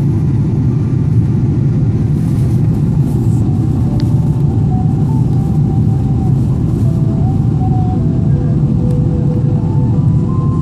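Steady rumble of a Boeing 777-300ER's GE90 engines and airflow heard inside the cabin during the landing approach, with faint thin tones that shift up and down in pitch.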